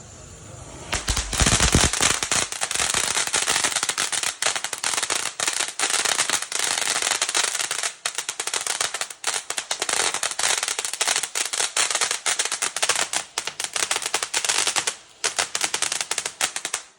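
Flower Power G 601 fountain firework burning: a steady high hiss thick with rapid crackles, starting suddenly about a second in. It dips briefly near the end and then cuts off suddenly.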